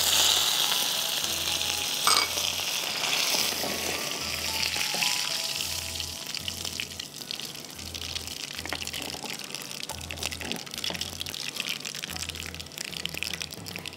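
Hot oil sizzling and spitting in a frying pan as curry leaves, dried red chilies, mustard seeds and urad dal fry for a tempering. It flares up suddenly at the start and slowly dies down.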